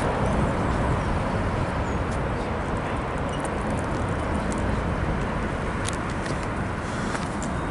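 Steady low roar of a distant Airbus A320 jet airliner's engines, slowly fading, with a few faint ticks over it.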